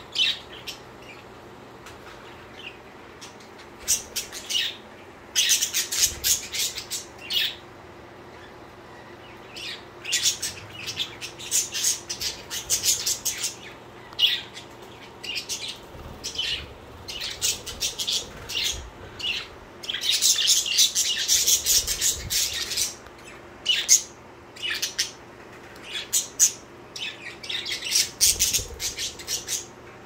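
Pet budgerigars chirping and chattering in irregular bursts of short, high chirps, with brief quiet gaps between bursts.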